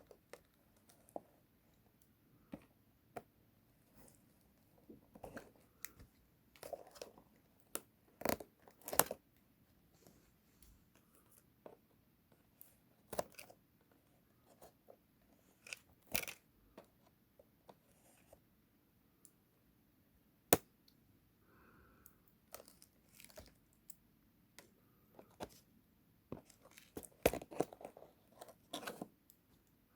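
Toy blind-box packaging being handled and unwrapped: scattered crinkling and tearing of plastic and paper wrappers, with sharp clicks, busiest near the end.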